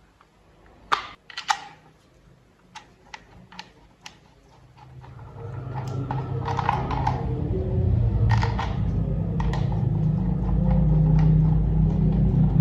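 Sharp clicks and taps of plastic toy parts being handled and snapped together. About five seconds in, a steady low hum rises and holds, with more clicks over it.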